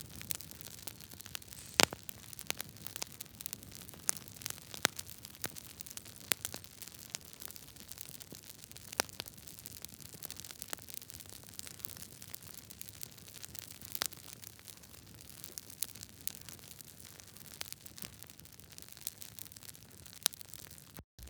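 Campfire crackling: a steady hiss with irregular sharp pops and snaps, the loudest about two seconds in. The sound drops out completely for a moment just before the end.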